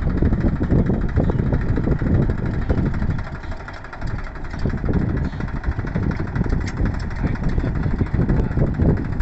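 Diesel tractor engine running steadily, its level dipping briefly about three seconds in.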